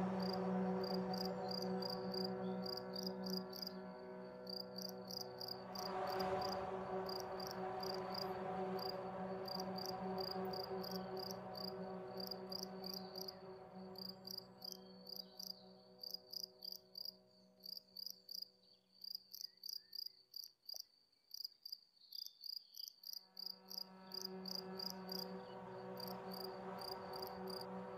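Crickets chirping in a steady, rapid rhythm over a soft, sustained low drone. The drone fades away about halfway through and swells back in near the end.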